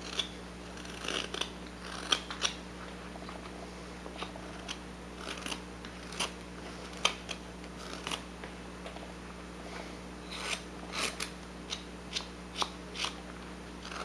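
Whittling knife slicing shavings from a block of basswood: a dozen or more short, crisp cuts at an irregular pace, some in quick pairs.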